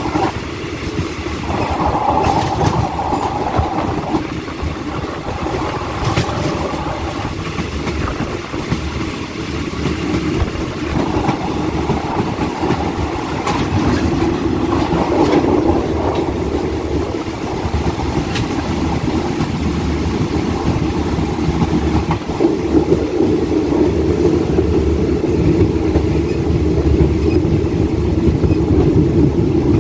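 A passenger train running along the line, heard from on board: a steady rumble of wheels on the rails, with occasional sharp clicks as the wheels cross rail joints.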